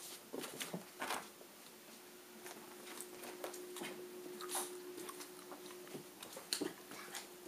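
Scattered light footsteps and clicks while walking across a hardwood floor, over a faint steady hum.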